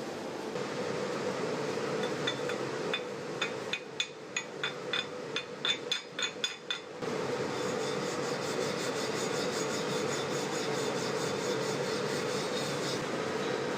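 Stick-welding arc from a 3.2 mm rutile electrode at about 110 A, crackling steadily. About three seconds in the crackle breaks off into a quick run of about a dozen sharp taps. The steady crackle picks up again about halfway through.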